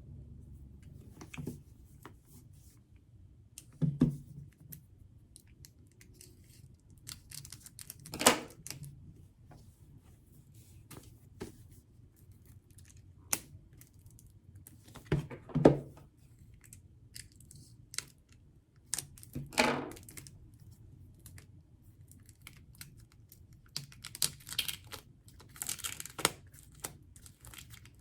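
Album packaging and cards being handled and set down: scattered light taps, clicks and knocks with a few louder thuds. Near the end comes a stretch of continuous crinkling and tearing of wrapping.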